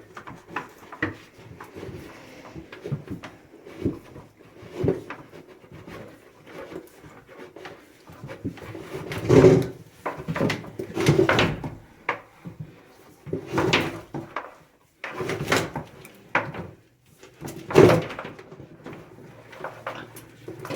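Irregular scraping, rubbing and knocking of pump cables being pulled out through a hole in a sewage pump basin lid, with several louder scrapes and knocks in the second half.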